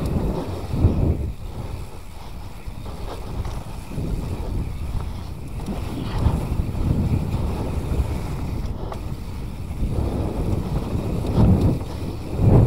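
Wind rushing over an action camera's microphone as a mountain bike rolls fast down a dirt trail, with the rumble of riding over the ground, surging louder about a second in and near the end.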